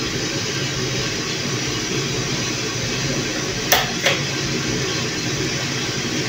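Small drum coffee roaster running steadily mid-roast, with beans tumbling in the drum. Two sharp metallic clicks come just under four seconds in as the sample trier is worked in its port.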